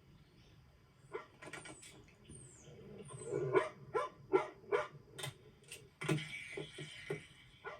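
Dog barking and yipping in a series of short, sharp barks, coming in a quick run in the middle.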